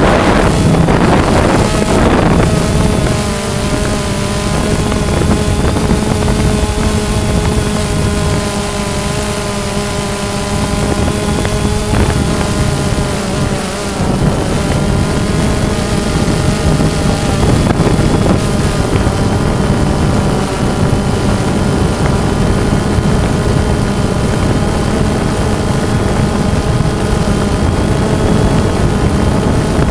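Quadcopter's electric motors and propellers whining steadily, heard close up from its onboard camera with wind noise over the microphone. The pitch shifts slightly a couple of times.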